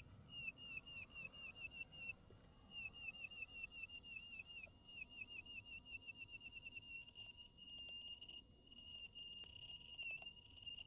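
Small handheld rotary tool with a fine drill bit running at a high-pitched whine, drilling a closely spaced row of holes into balsa. Its pitch dips briefly each time the bit plunges in, about four times a second at first and less often after the middle.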